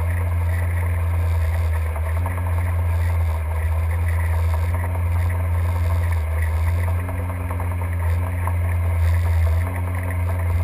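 A boat's engine running steadily, heard underwater: an even low hum with a few held tones and no change in pitch.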